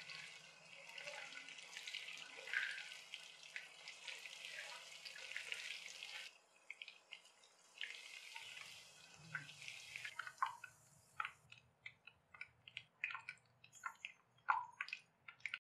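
Boneless chicken pieces in a cornflour batter deep-frying in hot oil, with a dense crackling sizzle. After about eleven seconds the sizzle dies away into scattered pops and drips as the pieces are lifted out of the oil on a wire spider strainer.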